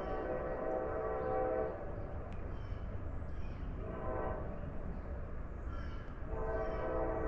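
An approaching freight locomotive's multi-chime air horn sounding its chord: a long blast that stops about two seconds in, a brief fainter note around four seconds, and another long blast starting near the end, over a low rumble.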